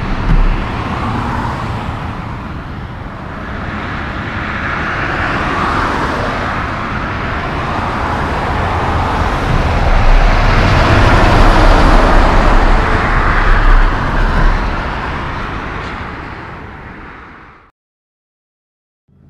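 Highway traffic passing close: a semi-truck's engine and tyre noise swells to a peak as it goes by, then fades away. The sound cuts to silence near the end.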